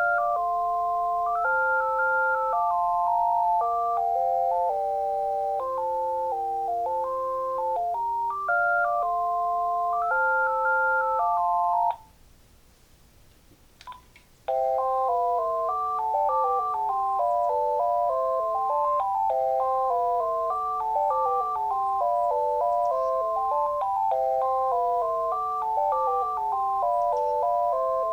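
Uniden TCX 905 cordless phone playing its electronic ringtones. A tune of several notes sounding together stops about twelve seconds in, a single click follows, and a second, faster tune of quick running notes starts a couple of seconds later.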